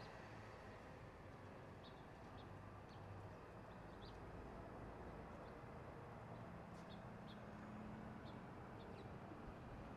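Faint outdoor ambience: a steady low rumble of distant traffic, with small birds giving scattered short, high chirps.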